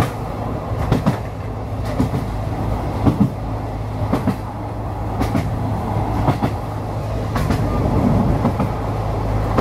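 SNCF X 2100-series diesel railcar (X 2145) running along the line, heard from the driver's cab: a steady low engine hum under the clickety-clack of the wheels over rail joints, short knocks coming roughly once a second, often in pairs.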